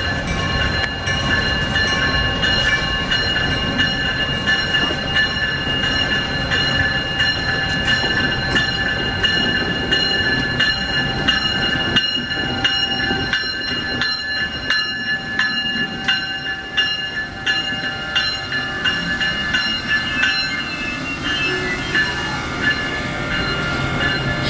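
Siemens ACS-64 electric locomotive's bell ringing steadily, about two strikes a second, over the low rumble of the locomotive creeping past; the ringing fades in the second half as it moves away.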